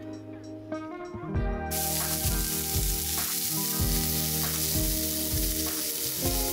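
Sausages sizzling in a frying pan over a portable gas stove's burner, the hiss starting suddenly about two seconds in and then holding steady. Background music with a steady beat plays underneath.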